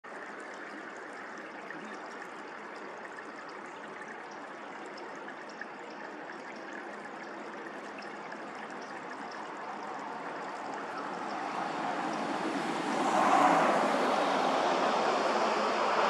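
Steady rushing outdoor noise that grows louder in the last third, swelling about 13 seconds in, with a couple of faint ticks early on.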